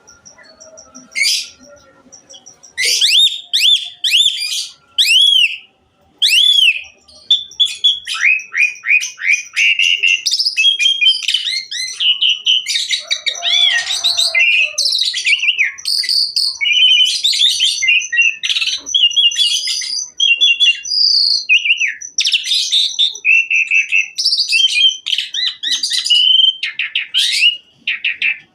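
Javan pied starling (jalak suren) singing, its song packed with mimicked phrases of other birds. After a couple of sharp whistles, from about three seconds in it runs into a fast, unbroken string of varied whistled slurs and chirps, and a thin steady high whistle holds beneath them through the middle part.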